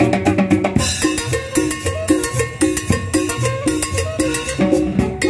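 Live street band playing upbeat Latin dance music, with a repeating bass line under steady, evenly spaced percussion.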